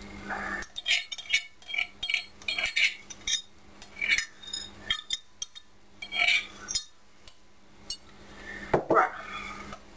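A metal spoon clinking and scraping against a glass mixing bowl, with the plastic measuring jug knocked against the bowl's rim, as grated cheese is tipped into milk and stirred. The clinks are short and irregular and thin out after about seven seconds.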